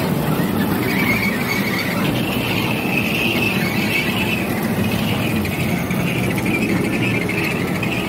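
Kiddie amusement-park train running along its track: a steady rumble with a continuous high squeal that wavers in pitch.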